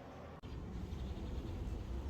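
Quiet room tone that cuts off abruptly about half a second in, followed by a steady, low outdoor rumble.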